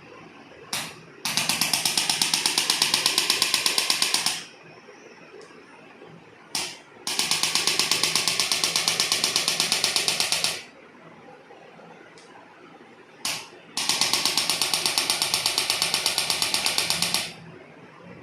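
Handheld electric percussion adjusting instrument delivering rapid, evenly spaced taps to the spine in three bursts of about three seconds each. A single sharp click comes just before each burst.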